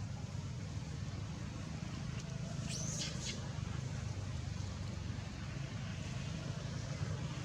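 Steady low rumbling background noise, with one brief high-pitched squeak about three seconds in.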